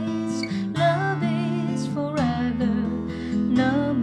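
Acoustic guitar playing chords, with a melody line held with vibrato above it.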